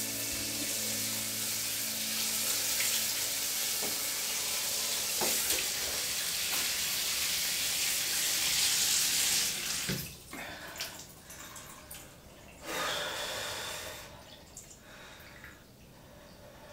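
A handheld shower head sprays a steady stream of water over a person's head and hair in a bathtub, then cuts off suddenly about ten seconds in. Small splashes in the bath water follow, with one brief gush of water a few seconds later.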